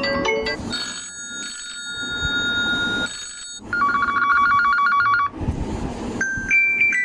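Huawei Nova 7i smartphone ringtones playing back to back: the end of a quick plinking tune, a steady held electronic tone, then a rapid trilling ring like a telephone bell about halfway through, and the start of another melodic ringtone near the end.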